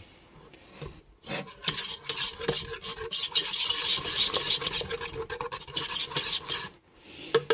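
A wire whisk beating hot sugar syrup that has turned white and foamy for bee fondant, its wires scraping against the pot in fast, continuous strokes. The whisking starts about a second in and stops shortly before the end.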